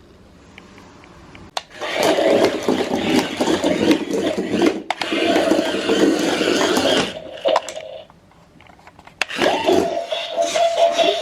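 A remote-control velociraptor toy playing loud electronic sound effects from its speaker. There are two long stretches with a short break of about two seconds between them, and a steady tone runs through the second one.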